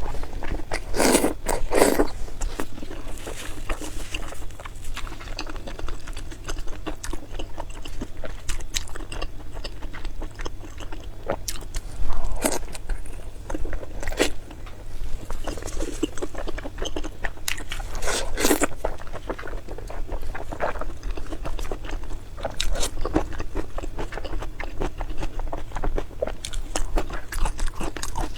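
Close-miked eating: crunchy bites and steady chewing, with louder crunching bites near the start and again about two-thirds of the way through.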